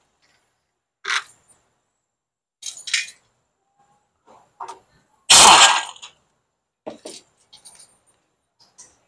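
Air impact wrench fired in one short burst about five seconds in, its pitch falling as the trigger is released, while loosening the bolts of an automatic transmission oil pan. Small metal clicks and clinks of the tool and bolts come before and after it.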